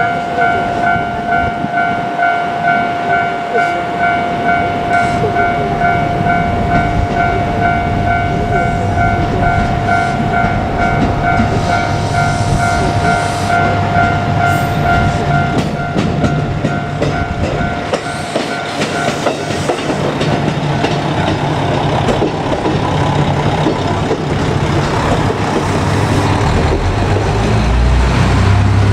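Japanese level-crossing warning bell ringing with a rhythmic pulsing tone, which stops about two-thirds of the way through. A KiHa 200 diesel railcar rumbles by on the track, its low engine and wheel noise growing louder toward the end.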